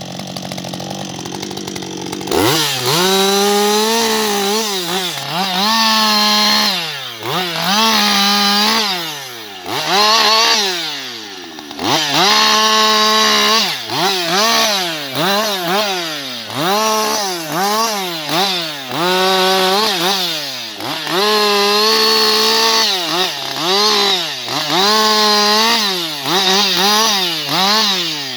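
Husqvarna 560XP two-stroke chainsaw engine, idling for about two seconds, then run up to full speed in about a dozen short throttle bursts, roughly one every two seconds, falling back toward idle between them.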